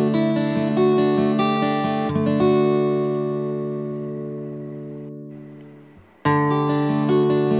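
Background music of plucked acoustic guitar: notes ringing out and fading away over a few seconds, then the tune starts up again about six seconds in.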